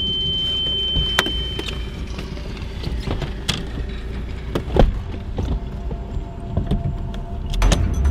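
Inside a parked car: scattered clicks and knocks from the occupants moving about and handling things, over a low steady rumble. A high steady tone stops about a second and a half in, and one knock near the middle is louder than the rest.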